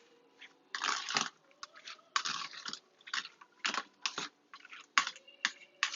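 Food-preparation noises: irregular short crunching and scraping bursts, about a dozen, the loudest about a second in.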